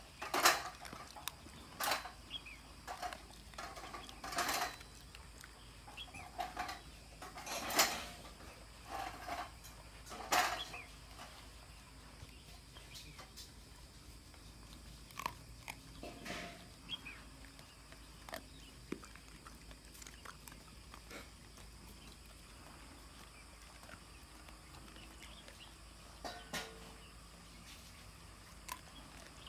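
A dog crunching and chewing fish bones: a run of sharp, irregular cracks, close together for the first ten seconds or so, then fewer and further apart.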